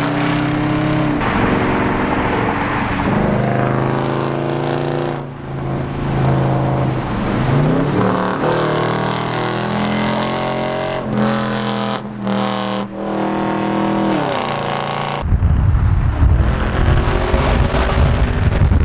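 Car engine with a straight-piped dual exhaust accelerating hard through the gears. The exhaust note rises in pitch and drops back at each shift, several times. About fifteen seconds in, it gives way to a heavy low rumble.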